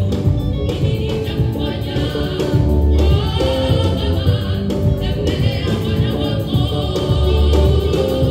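Gospel choir singing with a live band, bass and drum kit beneath the voices.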